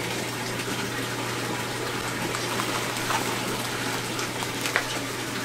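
Steady rush of water circulating through saltwater aquarium systems, with a low steady pump hum beneath it. A few faint crinkles of plastic fish bags being handled.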